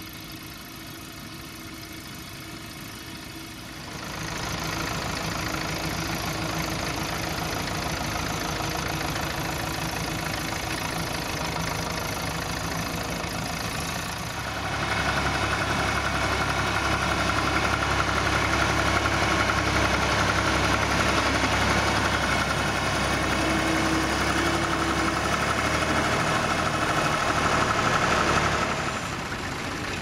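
Small vintage Fordson tractor's diesel engine running steadily under load while pulling a plough. It gets louder about four seconds in and again around the middle, then eases near the end.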